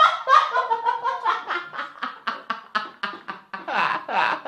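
Two young men laughing hard together in quick, repeated bursts, with louder outbursts near the end.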